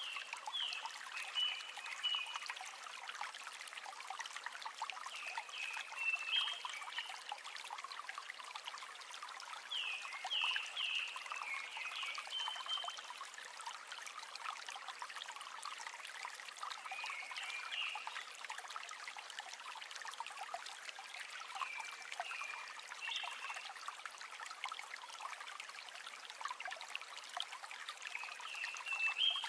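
River water running and trickling in a steady rush. Short clusters of high chirps recur every five seconds or so over it.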